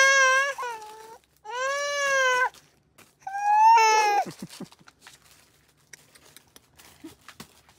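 A baby girl about one year old crying out in three long, high-pitched wails over the first four seconds, followed by faint clicks and handling noises.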